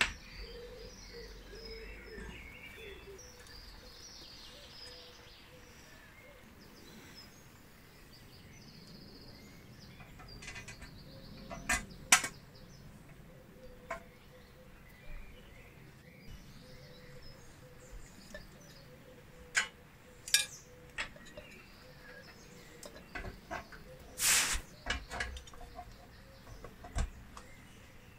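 Scattered sharp clicks and taps of small parts and tools being fitted to a battery charger's metal case, with one longer scrape about three-quarters of the way through. Faint bird chirping runs in the background.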